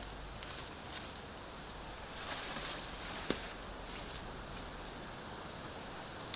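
Steady hiss of rain falling outdoors, with a brief rustle a little past two seconds and a single sharp click about three seconds in.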